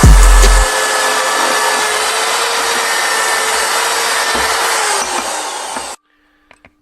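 Power tool running against the rusty metal of an old vise during restoration: a steady hiss over a motor tone that sags a little near the end, cut off suddenly about six seconds in.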